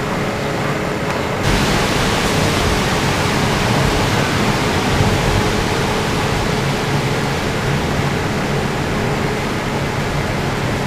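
Chicken pieces frying in oil in a covered pan, an even sizzle that turns suddenly louder and brighter about a second and a half in, once the pan's lid is opened.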